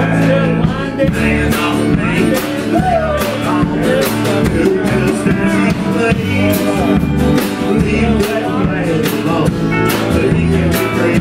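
Live country band playing: pedal steel guitar with sliding notes over electric bass, acoustic guitar and a drum kit keeping a steady beat.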